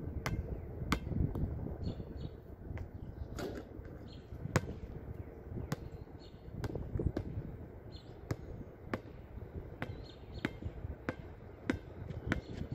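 A basketball bouncing on a hard outdoor court: sharp thuds at uneven intervals, roughly one every half second to a second, as it is shot, comes down off the rim and is dribbled. A low rumble runs underneath.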